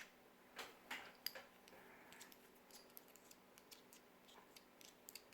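Faint, scattered light clicks and ticks of a small screwdriver and screws working on the plastic housing of a BMW iDrive controller as it is screwed together; a few sharper clicks in the first second and a half, then softer ticks.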